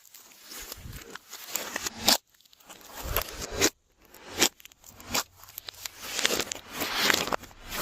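Glossy slime being mixed by hand: irregular crackles and sharp sticky clicks, in bursts with short pauses between them.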